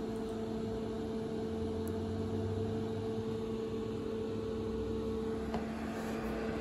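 Steady electrical hum with two even tones from a powered-up vintage electronic load on the bench, with a faint click near the end.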